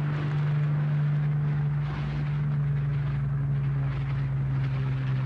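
Hawker Hurricane's Rolls-Royce Merlin V12 engine on takeoff as the fighter lifts off and passes low: a steady, deep propeller-engine drone whose pitch sinks slightly as it goes by.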